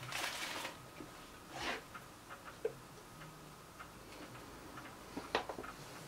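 Paper rustling for a moment at the start, then scattered light clicks and taps as a spoon, a plastic tub of seed mix and a plastic peanut butter jar are handled on a countertop; the sharpest tap comes about five seconds in.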